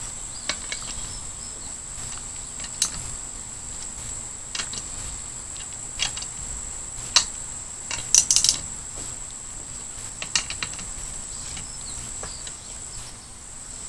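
Wrench clicking now and then as the camshaft bearing cap nuts are tightened a quarter turn at a time: single sharp clicks every second or two, and two short quick runs of clicks about eight and ten seconds in. A steady faint high whine sits underneath.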